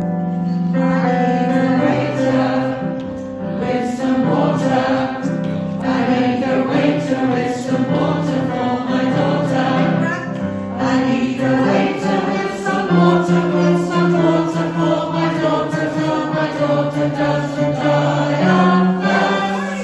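A group of voices singing together, holding long notes that change in steps.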